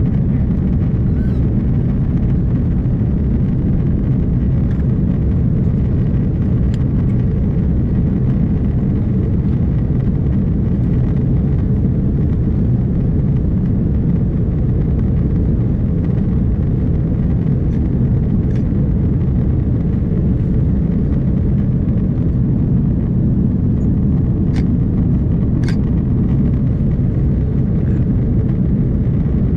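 Steady, loud, low rumble inside the cabin of an Airbus A330-203 in flight, from its GE CF6-80E1A3 turbofan engines and the airflow over the fuselage. A few faint clicks sound near the end.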